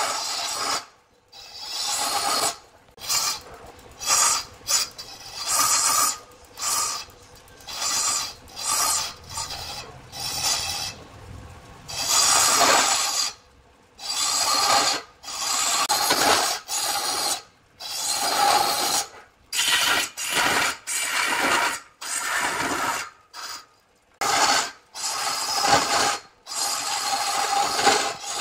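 A hand tool scraping across wood in repeated strokes, about one a second, each with a short pause between.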